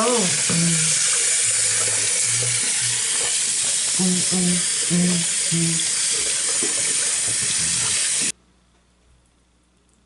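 Bathroom tap running into a sink, a steady rush of water that stops abruptly about eight seconds in.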